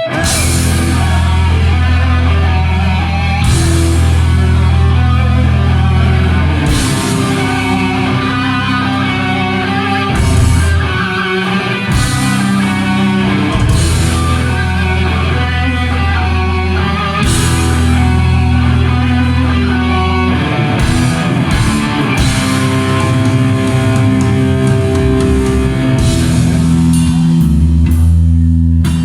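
Heavy metal band playing live: electric guitar riffing over bass and drums, with cymbal crashes every few seconds.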